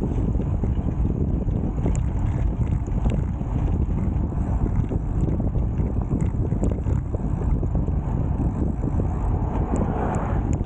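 Wind buffeting the microphone on a moving road bike: a steady, low noise with no gaps.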